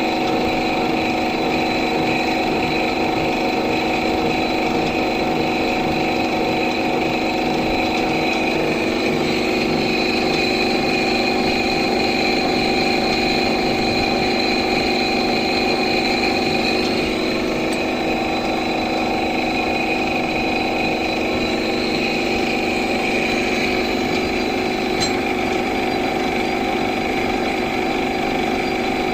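Machine tool running steadily while machining a cast brass pinion gear, a continuous mechanical hum with several steady tones.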